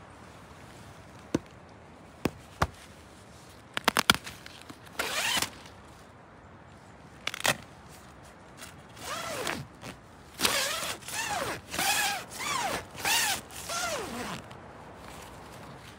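Zipper on a silnylon tent door being drawn along in a run of about six short pulls near the end, each a rasping stroke that rises and falls in pitch. It is preceded by a few sharp clicks and two brief scratchy strokes.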